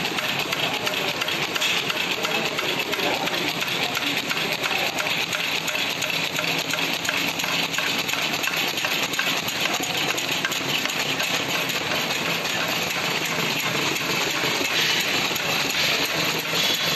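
Lock-bottom folder gluer running at production speed: a steady mechanical clatter and hiss of belts, rollers and carton blanks feeding through, with a fast fine ticking throughout.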